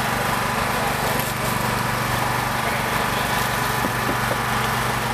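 An engine running steadily at constant speed, a low, unchanging hum.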